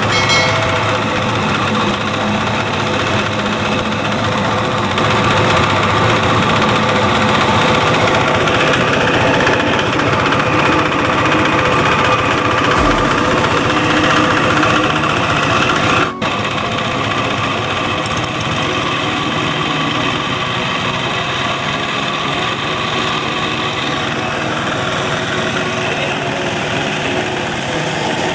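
Diesel engine driving an irrigation water pump, running steadily at a constant speed.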